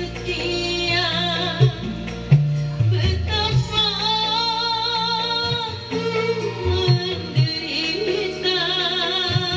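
A voice singing a slow song over a backing track with a steady bass line, the sung notes wavering with vibrato.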